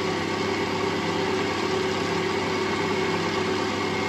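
Cecotec Mambo kitchen robot's motor running steadily at speed 4, its blades mixing a thick batter of butter, sugar, flour and eggs, with an even hum.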